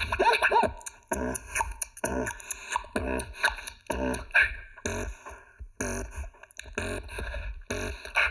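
D-low beatboxing: a rhythmic pattern of sharp mouth-percussion hits about twice a second, woven with pitched, wavering vocal tones that sound like a synthesizer oscillator.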